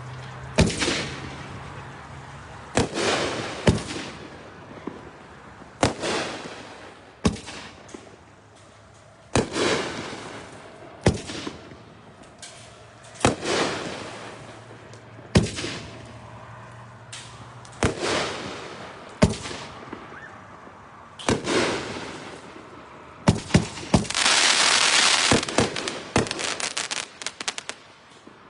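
Dr. Loud, a 9-shot consumer firework cake, firing: loud reports one after another, roughly every two seconds, with a burst of dense crackling near the end followed by a quick run of pops.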